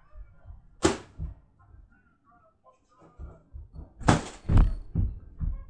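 Sharp slaps and thuds of a child batting a light toy up into the air by hand: one loud slap about a second in, then a cluster of hits around four seconds in.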